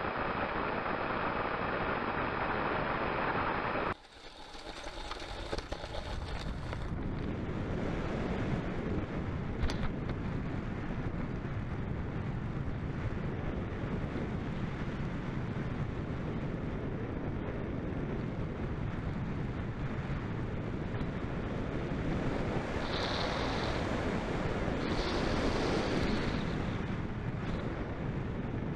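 Steady rush of airflow over the onboard camera microphone of a model glider being towed in flight. About four seconds in, the sound drops suddenly and then builds back up, with two short brighter hissy patches near the end.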